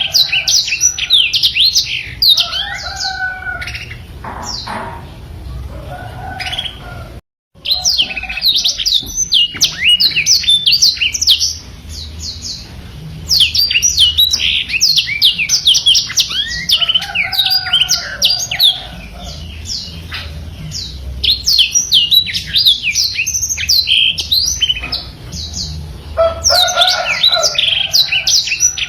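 Black-throated canary (blackthroat) singing continuously: long, rapid rolling phrases of fast-gliding high twittering notes, with a brief break about seven seconds in.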